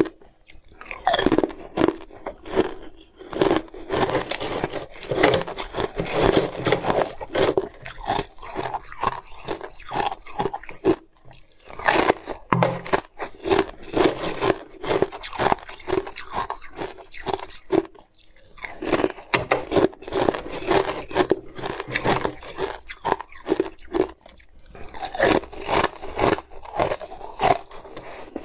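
Close-up crunching of a piece of ice bitten and chewed between the teeth: many sharp, rapid crunches in runs, broken by a few short pauses.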